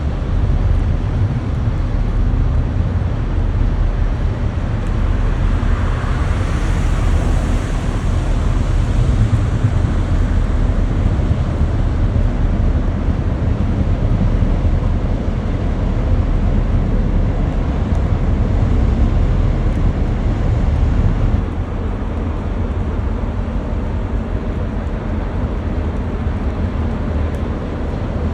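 Low, steady engine rumble of a passing cargo ship, with wind and water hiss over it. A hiss swells briefly about six seconds in, and the whole sound drops abruptly in level about 21 seconds in.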